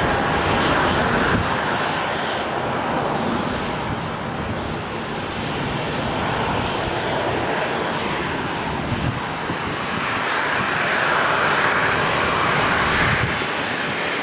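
Steady jet engine noise from a Boeing 737 airliner taxiing, swelling a little in the last few seconds.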